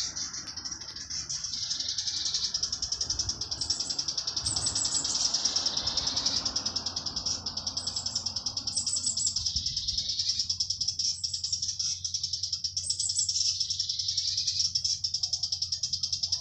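Cicadas buzzing in a continuous high-pitched chorus, with a fast pulsing texture that swells and eases in waves. A lower, softer rushing noise underneath fades out about ten seconds in.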